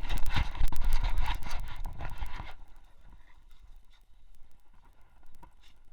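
Knocking and rubbing on a camera worn by a running dog, a quick run of footfall-like knocks over a low rumble that dies away about two and a half seconds in, leaving only faint scattered ticks.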